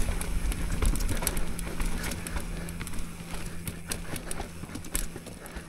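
Mountain bike riding down rough trail: tyres rolling over dirt and rock with frequent clacks and rattles from the bike, getting quieter toward the end.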